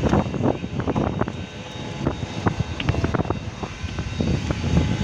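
Airbus A320neo airliner's engines and airframe heard from inside the passenger cabin: a steady low rumble with irregular knocks and rattles.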